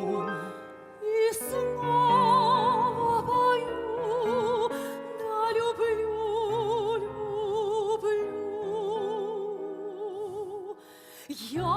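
Operetta theatre orchestra playing an instrumental interlude between verses of a duet: a melody with vibrato over sustained chords, easing off briefly about a second in and again near the end.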